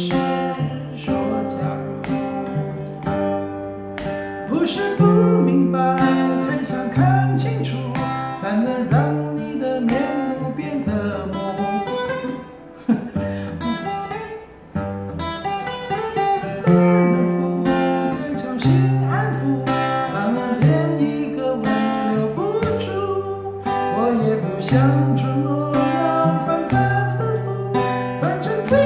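Steel-string cutaway acoustic guitar played fingerstyle: picked melody notes over a moving bass line, going briefly quieter about halfway through.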